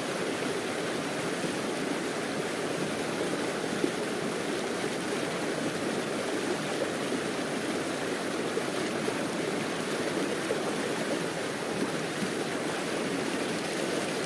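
River water flowing steadily, an even rushing noise that holds at one level.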